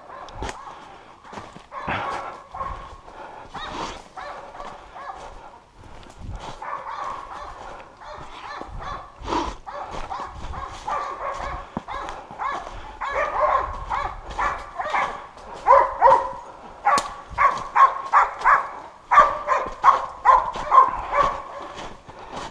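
Hunting dogs barking in repeated short barks, sparse at first and then coming in quick, louder runs from about halfway through.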